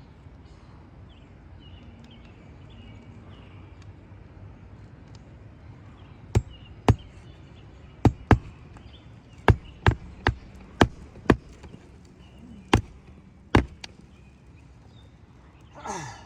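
About eleven sharp knocks, uneven and some in quick pairs, as roofing nails are driven through asphalt shingles into the roof deck during a shingle repair. Birds chirp faintly before the knocking starts.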